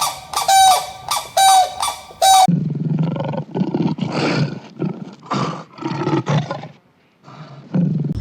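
A bird's short honking calls, about two a second, then a sudden change to a large wild animal's rough, throaty roaring calls in a series of pulses, with a short pause near the end.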